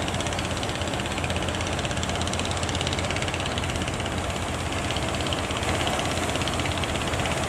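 Fishing boat's engine running steadily, with a rapid, even chugging beat.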